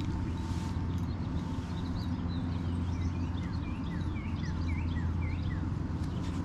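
A songbird giving a quick run of short, high chirps in the middle, over a steady low rumble.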